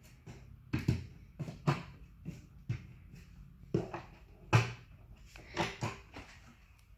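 Irregular knocks and clicks of cabinet panels and fittings being handled and fitted together during flat-pack base cabinet assembly, about nine in all, the loudest about four and a half seconds in.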